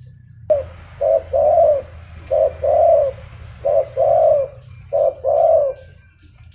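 Spotted dove cooing: four phrases, each a short coo followed by a longer, arching coo, over a steady low hum.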